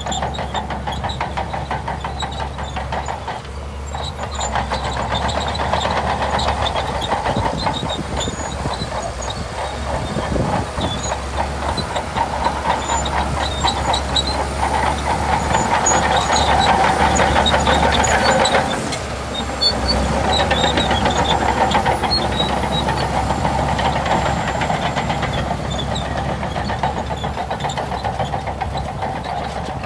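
Shantui DH17C2 crawler bulldozer working: its diesel engine running under load with the clatter of its steel tracks. The sound swells, drops briefly about two-thirds of the way through, then picks up again.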